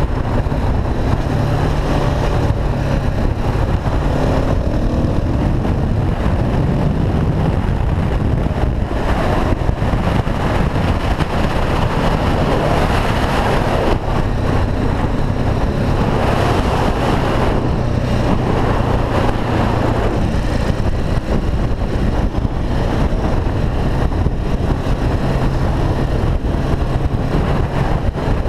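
KTM SMC R supermoto's single-cylinder engine running under way at road speed, with a steady rush of wind over the microphone. The engine note rises and falls a few times as the throttle is opened and eased.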